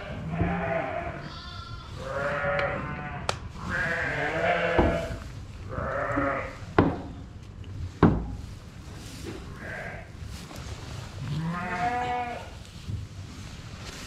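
Sheep bleating, about six separate calls spread through, with a few sharp knocks in between, the loudest about eight seconds in.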